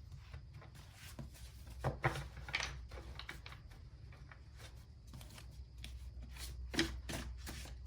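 Light rustling, rubbing and tapping of objects being handled close by, with sharper knocks about two seconds in and near the end.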